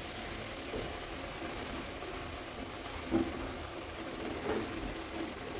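Assamese fish curry with leafy greens simmering in a wok, a low steady bubbling, with soft splashes as fried fish pieces are slipped into the broth.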